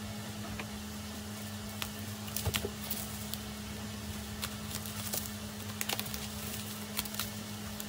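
Scissors cutting through bubble wrap packaging: scattered snips, crackles and plastic crinkling. A steady low hum runs underneath.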